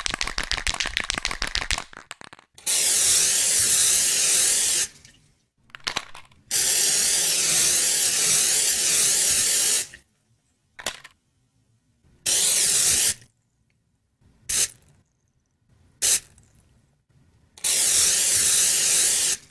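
A spray hissing in bursts. It opens with a rapid sputtering run of short pulses, then gives several long steady hisses of two to three seconds, broken up by short puffs, and ends on a final long hiss.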